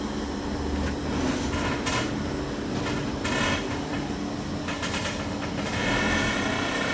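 Electric blower feeding air to a forge fire, running with a steady hum, with a few brief noises on top.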